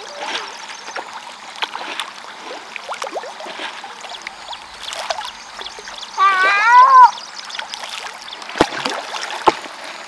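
Fish feeding on floating pellets at a pond's surface: small splashes, slurps and water clicks. About six seconds in comes a loud wavering high-pitched cry lasting under a second, the loudest sound, and two sharp pops follow near the end.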